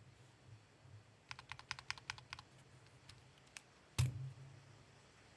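Typing on a mechanical keyboard fitted with Gateron Milky Yellow Pro linear switches: a quick run of about ten keystrokes, a couple of single presses, then one louder, deeper thump about four seconds in.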